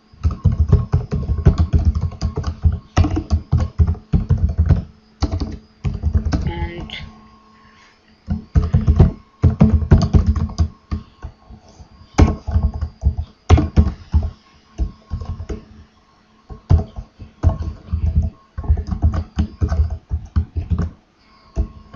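Computer keyboard typing in quick runs of keystrokes, with a couple of short pauses, as a line of code is entered.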